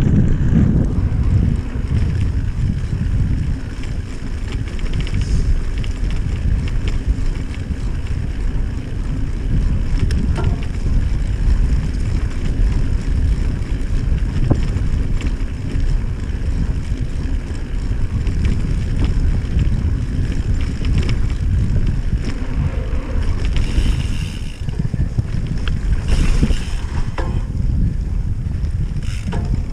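Wind rushing over the microphone and the rumble of a mountain bike's tyres rolling fast over bumpy grass, with a few short sharp rattles.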